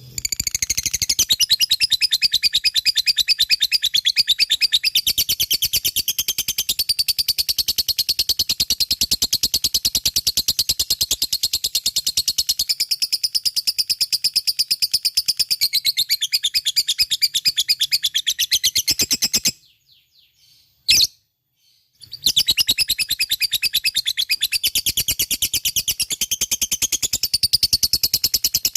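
Lovebird singing its long, rapid chattering trill (the 'ngekek' song): a fast unbroken string of high chirps. About two-thirds of the way through it stops for two or three seconds, with one short sharp sound in the gap, then starts up again.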